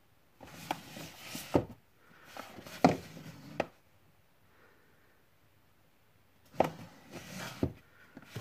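Cardboard Blu-ray box sets being slid out of and back into a row on a wooden shelf: three bouts of scraping and rubbing, each with a few sharp knocks as a box meets the shelf or its neighbours, and quiet between.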